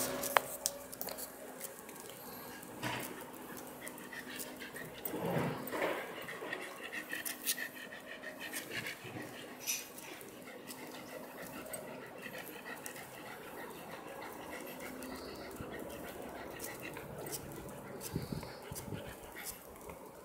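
A pet dog panting in the heat, with scattered small clicks and knocks.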